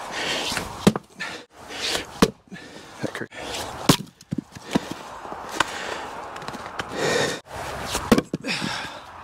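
Fiskars splitting maul striking an ash round: about four sharp chopping cracks a second or more apart, with a longer gap before the last ones, as the round is split from its edge inward and pieces fall away.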